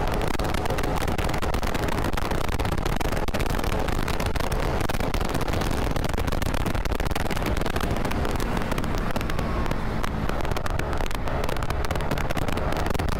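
Riding noise from a Kymco KRV 180 TCS scooter: steady engine and road noise under rough, crackling wind buffeting on the microphone.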